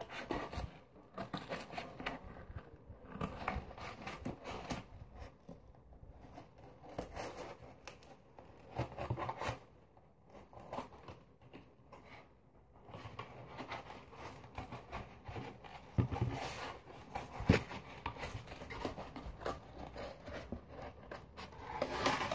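Scissors cutting through cardboard in irregular snips, with the cardboard rustling as it is turned; the snipping thins out for a while about ten seconds in.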